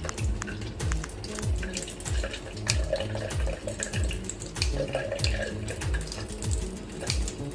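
Background music with a steady beat of about two kicks a second, over water running into a stainless-steel sink. Sharp clicks of kitchen scissors snip through the tips of crab legs.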